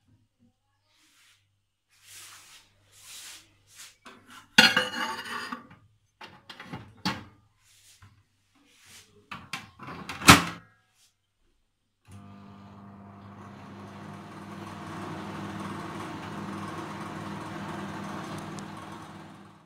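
Knocks and a clatter as a glass bowl goes into a microwave, then the door shuts with a sharp click about ten seconds in. About two seconds later the countertop microwave starts and runs with a steady hum.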